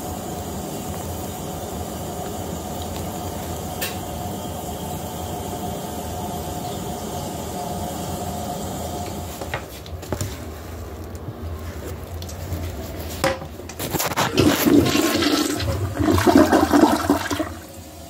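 Flush toilet refilling, with a steady run of water and a steady tone. A few clicks come about ten seconds in. Then, from about fourteen seconds, another toilet flushes with a loud, surging rush of water that dies away near the end.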